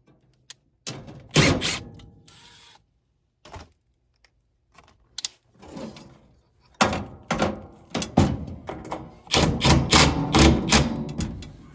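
Clicks, clanks and knocks of hand tools and metal furnace parts being handled, scattered at first and coming thick and fast in the last few seconds.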